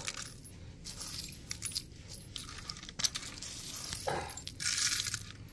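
Spent shell casings and gravel clinking and rattling as a hand rakes through them and scoops grit into a pistol, in scattered small clicks with a louder scraping rush near the end.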